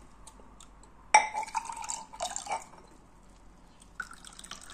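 Strained apple juice being poured from a bowl into drinking glasses, splashing and dripping, with a glass clinking about a second in.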